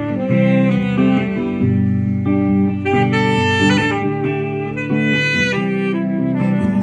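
Music: an instrumental passage with a sustained melodic lead line over chords.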